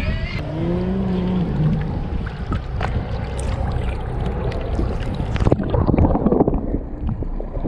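Wind on the microphone and water sloshing as a fish is lowered into the sea by hand. About five and a half seconds in, the sound turns muffled as the microphone goes underwater, with scattered clicks and bubbling.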